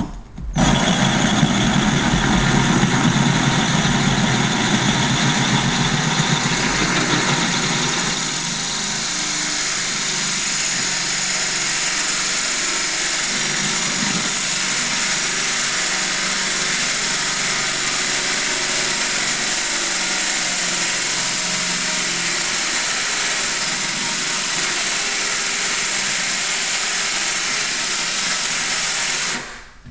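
Electric drill running a core bit through granite countertop, the bit grinding steadily in a pool of cooling water. The drill starts up about half a second in, settles slightly lower about eight seconds in, and stops near the end.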